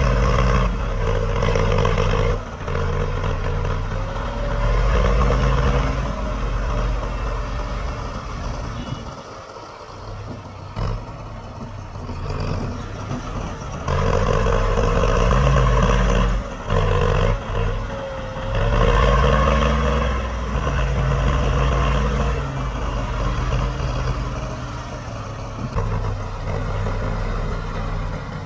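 Heavy diesel engines of construction machinery running under load, revving up and dropping back several times, with a quieter stretch about a third of the way through.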